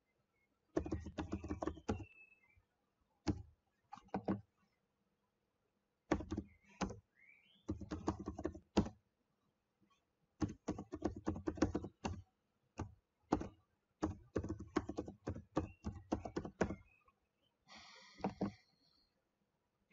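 Typing on a computer keyboard: runs of quick key clicks in bursts with short pauses between, as an email address is entered.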